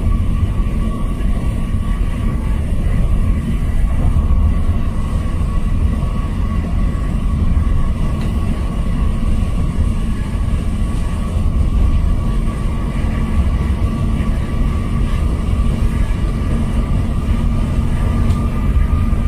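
Truck engine and road noise heard inside the cab while cruising on a highway: a steady low rumble with a thin, steady whine above it.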